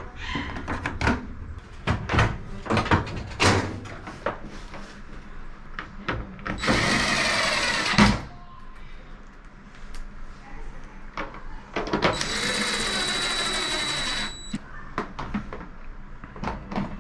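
Power drill running in two bursts, the first about a second and a half long and the second about two and a half seconds, with a slight wavering in motor pitch. Scattered clicks and knocks of handling tools and parts come before and between the runs.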